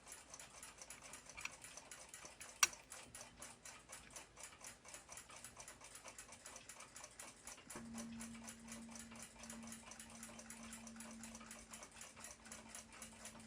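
Platform escapement of a Junghans ship's clock movement ticking quickly and evenly, about five ticks a second, as its balance wheel swings. One sharper click comes about two and a half seconds in, and a faint steady hum joins about eight seconds in.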